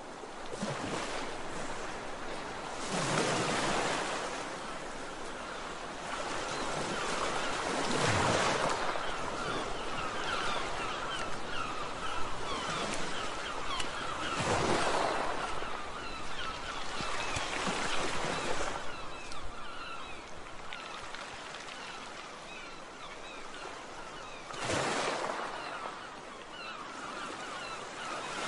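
Sea waves washing in, a steady rushing that surges every few seconds, with a faint high twittering over it from about a third of the way in.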